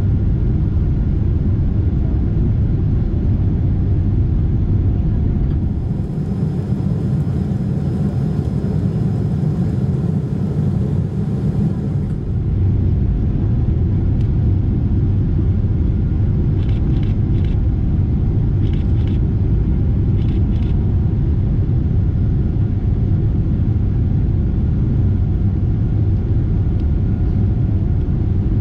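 Steady low roar of a Boeing 747-8's GE GEnx turbofans and the airflow, heard inside the cabin during the climb after takeoff. For a few seconds in the middle the sound turns thinner and hissier, then settles back.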